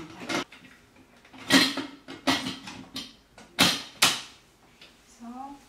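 Stainless-steel pressure cooker's lid being fitted and locked shut: a series of sharp metal clanks and clicks, about five of them.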